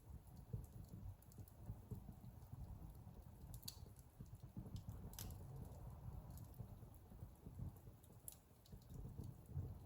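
Faint wood fire burning in a fireplace: a steady low rumble of flames with a few sharp crackles and pops scattered a second or more apart.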